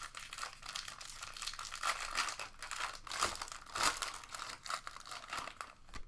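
Foil wrapper of a Bowman Draft baseball card pack being torn open and crinkled by hand: a dense, crackly rustle with louder rips about two, three and four seconds in, dying down near the end.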